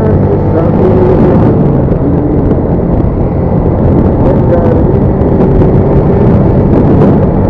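Motorcycle engine running on the move, with a loud, steady rush of wind and road noise.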